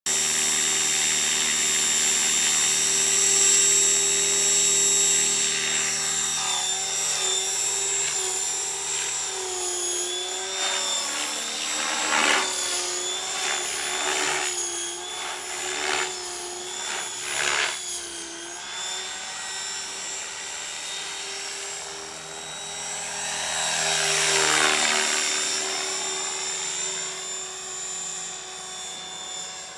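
Radio-controlled model helicopter running and flying, its motor and rotor giving a steady high whine whose pitch bends up and down as it manoeuvres. Late on the sound swells and its pitch rises then falls as the helicopter passes by, and it fades as it flies off.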